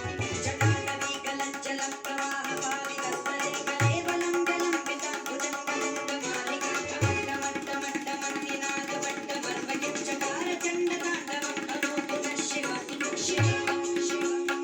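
Tabla played in quick strokes along with a recorded song, the deep bass drum (bayan) booming four times, a few seconds apart.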